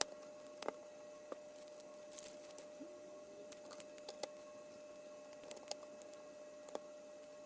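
LEGO plastic bricks being handled and snapped together during a build: sparse, irregular sharp clicks over a faint steady hum.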